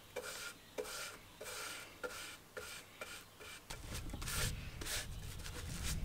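Paintbrush bristles stroking paint onto a bare wooden beehive box, a run of short scratchy brush strokes about one every half second to a second. A low rumble joins in about two thirds of the way through.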